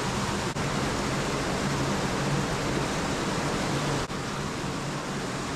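Underground waterfall pouring down a cave drop: a steady rushing of falling water, broken by two brief dropouts.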